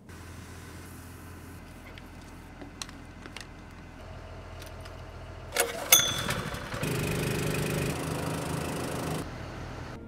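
A Honda GX small gas engine driving a fertilizer transfer pump is started with a sudden loud rattle and rising whirr about halfway through, then runs steadily for a couple of seconds before the sound cuts off. Before it, a low steady hum with a few clicks.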